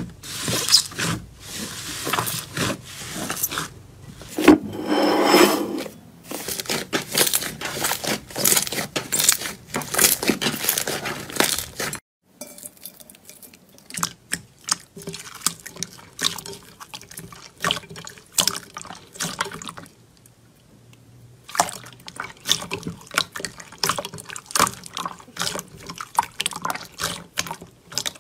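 Slime being pressed and squeezed by hand in a bowl: rapid wet squishing with crackling and popping. About twelve seconds in it switches suddenly to a quieter, sparser squelching of a watery jelly slime, with a short lull before the pressing picks up again.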